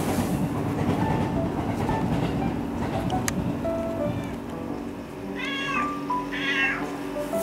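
Domestic cat meowing twice near the end, two short arched calls about a second apart. Background music and a low rumbling noise run underneath.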